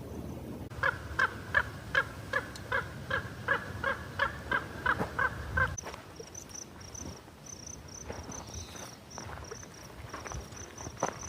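A bird calling a fast, even run of about fourteen harsh, crow-like notes, close to three a second, for about five seconds. After it a faint, high chirp repeats several times a second.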